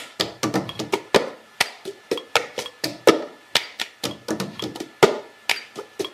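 A quick, irregular run of sharp taps, about five a second, over a faint steady high tone.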